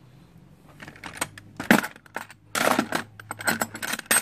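Metal hand tools (sockets, wrenches, screwdrivers and pliers) clinking and rattling against each other in a plastic toolbox as a hand rummages through them. Sparse clicks about a second in grow into a busier clatter through the second half.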